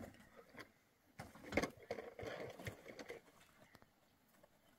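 Handling noises of a man working on a shade frame: scattered knocks and scuffs, a sharp knock about a second and a half in, and a rustle of cloth and wood for a second or so after.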